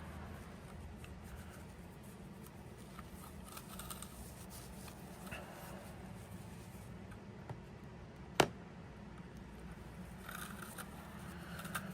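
Quiet room tone with a steady low hum, faint small handling and scraping sounds, and one sharp click about eight seconds in.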